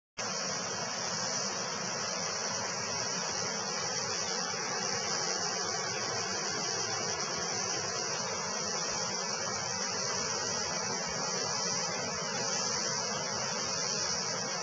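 Steady, high-pitched insect buzzing over an even hiss, cutting in abruptly at the start and holding unchanged.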